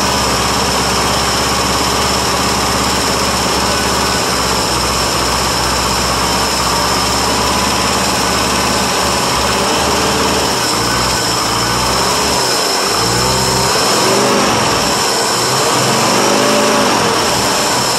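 International Harvester 392 V8 running, first run after sitting 28 years. In the second half its engine speed rises and falls several times.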